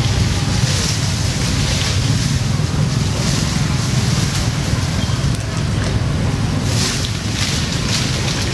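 A steady low rumble throughout, with short bursts of hissing every second or so.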